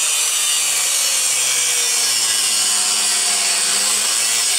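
Angle grinder with a thin cutting wheel slicing through a rusted control-arm bolt and its bushing barrel: a steady, loud grinding hiss, with the motor's whine sagging slowly as the wheel bites under load.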